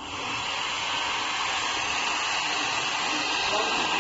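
Fan blowing air: a steady rushing hiss that builds over the first half second, then holds even.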